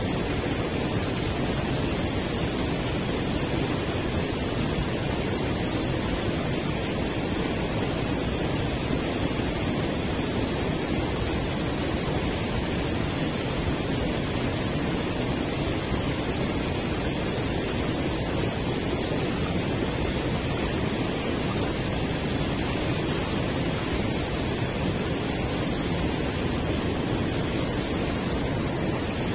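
River water rushing steadily over a low concrete weir, an even noisy roar with no breaks.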